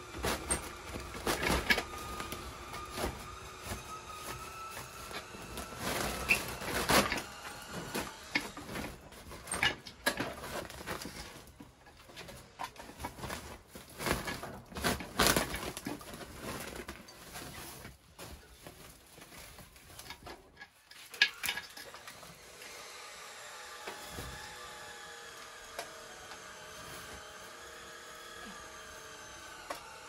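Rustling of a woven plastic sack being pulled off old metal standing fans, with scattered knocks as the fans are handled. It turns quieter in the last third.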